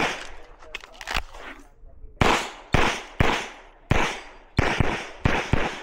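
Pistol shots fired by the shooter at close range: one shot, a pause of about two seconds, then a string of about seven quick shots roughly half a second apart, each with a short echo.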